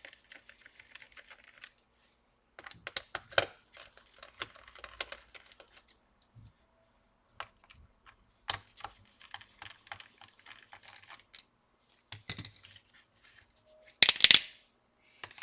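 Small screws being undone on an opened laptop: scattered light clicks, taps and plastic handling noises from a precision screwdriver and the parts, with one louder clatter near the end.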